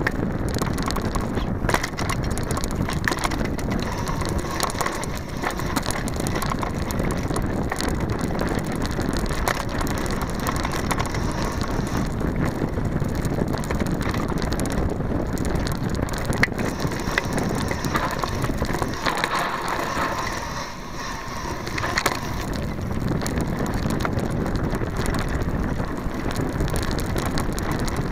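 Mountain bike rattling and clattering down a rough dirt singletrack, picked up through a camera mounted on the frame: a constant jumble of clicks and knocks from the chain and components over tyre and trail noise, briefly quieter about twenty seconds in.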